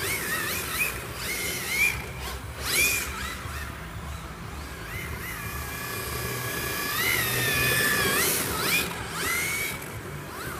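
Electric motors of MST FXX-D RC drift cars whining as the throttle is blipped, with a pitch that repeatedly swoops up and down. A longer held whine climbs steadily for a couple of seconds past the middle.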